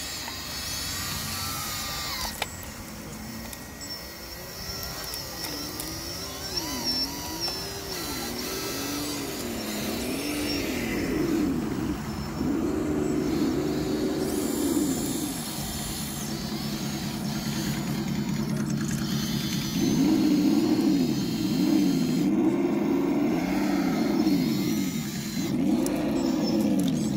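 Electric motor and drivetrain of an RC crawler truck whining, the pitch rising and falling over and over as the throttle is worked, louder in the second half.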